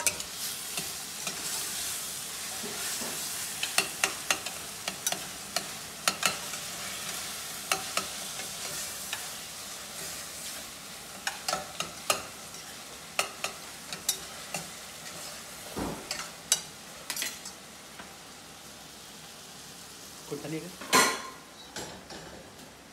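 Chicken pieces with dried red chillies frying with a steady sizzle in a stainless-steel pan on a gas stove, with frequent clicks and scrapes of spoons stirring against the metal pan and pot. The sizzle fades after about three quarters of the way through, and a loud knock comes near the end.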